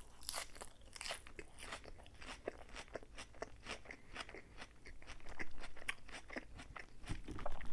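Close-miked chewing of a mouthful of crisp lettuce salad: a steady run of quick, irregular crunches.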